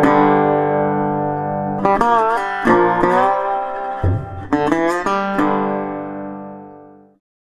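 Intro jingle music on guitar: a held chord, then a short run of plucked notes that bend in pitch, ending on a held chord that fades out about seven seconds in.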